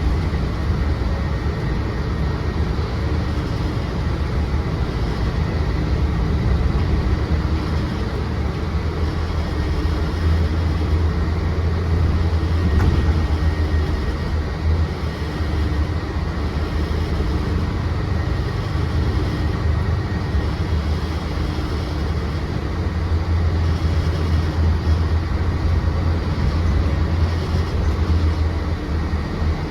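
Inside a Mercedes-Benz Citaro C2 city bus on the move: a steady deep engine and drivetrain rumble with road noise, swelling and easing a little. A faint thin whine sits above it.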